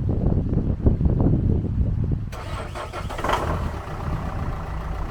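Campervan engine cranking on its starter and catching about two seconds in, then settling into a steady idle. It is starting on a newly fitted battery, after the old one was drained and frozen flat.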